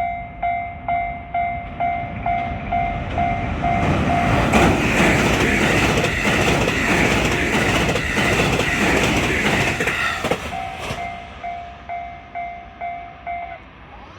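Japanese level-crossing warning bell ringing a two-tone clang about twice a second. About four seconds in, a JR West 223 series 1000 electric train passes, its wheels clattering over the rail joints for about six seconds and drowning the bell. The bell is heard again after the train and stops near the end.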